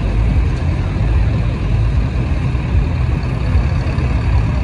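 Modified diesel pulling tractor's engine idling loud with a low, steady rumble, a second tractor's engine running alongside.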